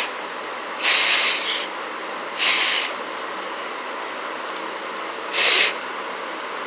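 Three short, breathy puffs of air, the first the longest, from a person drawing on and blowing through a vape that is not producing vapour, over a steady background hiss.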